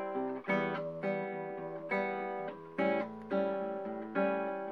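Background music: acoustic guitar strumming chords, a fresh strum about every 0.8 seconds with each chord ringing on in between.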